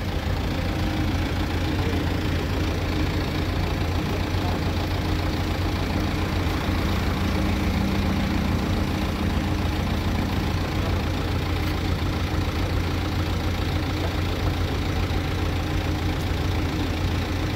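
Truck engine idling steadily, a low even hum, with a slightly higher tone joining in for a few seconds in the middle.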